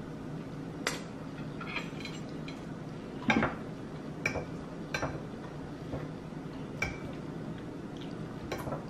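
Metal cutlery clinking and scraping on a plate as food is taken up, about eight separate clinks, the loudest about three seconds in, a couple of them ringing briefly.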